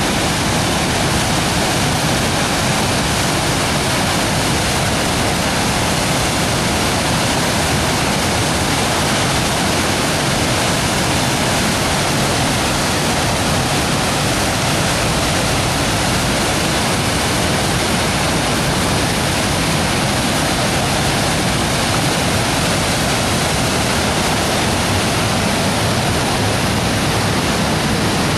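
Loud, steady rush of swollen floodwater pouring and cascading, a continuous even roar of falling water.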